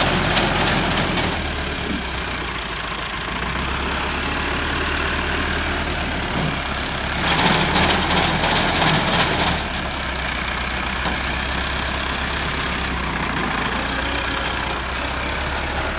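Massey Ferguson 385 tractor's diesel engine running steadily while it drives a front-mounted reaper cutting standing wheat. About seven seconds in the sound grows louder and harsher for about two seconds, then settles back.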